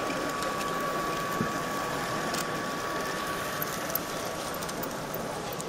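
Steady background noise of a LEGO train exhibition hall: a mechanical hum with a faint steady whine and a few light clicks.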